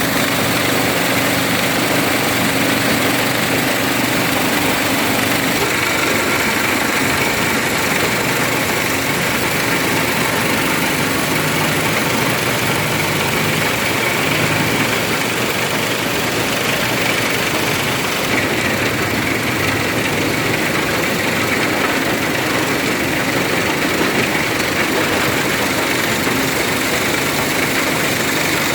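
Stone-crushing machine running: a steady engine drone under dense, continuous noise.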